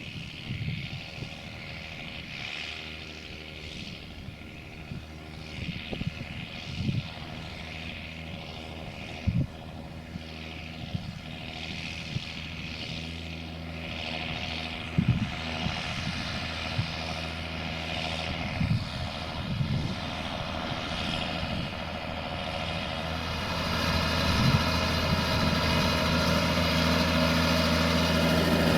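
John Deere 6520 tractor's six-cylinder diesel engine running steadily under ploughing load, with a swelling and fading hiss over it, growing louder over the last few seconds.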